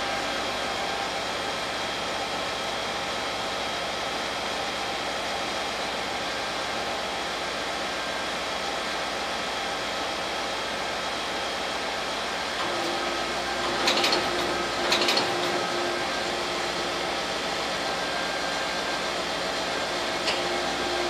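Large all-terrain mobile crane's diesel engine running steadily, a constant whirring hum. About two-thirds of the way in a higher steady tone joins, and two short, sharp louder sounds come a second apart.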